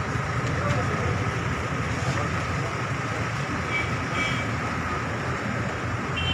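Steady hubbub of a gathered crowd mixed with a car's engine running. Brief faint high tones about four seconds in and again near the end.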